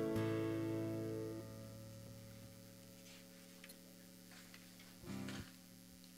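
A worship band's last chord on acoustic guitars and bass guitar ringing out and fading away over about two seconds. A few faint clicks follow, and a short low note sounds about five seconds in.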